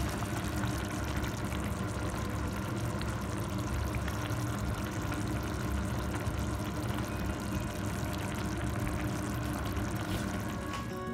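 Minced-meat and tomato sauce simmering in a frying pan, bubbling steadily.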